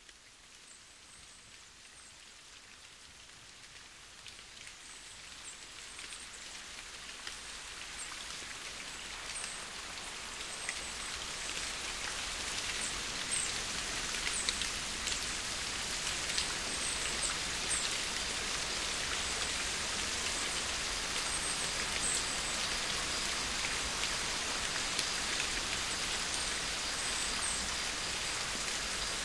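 Steady rain, fading in gradually over the first dozen seconds or so and then holding steady, with scattered faint high ticks.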